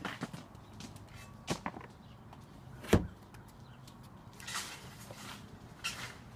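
Hollow plastic clacks from a toy playhouse's small door being handled, the loudest a single sharp knock about halfway through as the door swings shut, with a few softer clicks and taps around it.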